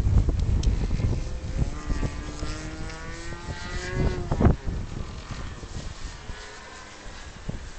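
Radio-controlled model aircraft flying past, its motor and propeller giving a droning note that climbs slowly and then drops in pitch as it goes by, about four seconds in. Wind buffets the microphone with low rumbling gusts.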